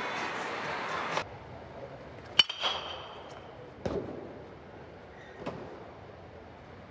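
A metal baseball bat strikes a pitched ball about two seconds in, a sharp ping that rings briefly. A dull knock follows a second and a half later, then a fainter click. Before that, steady hall noise cuts off about a second in.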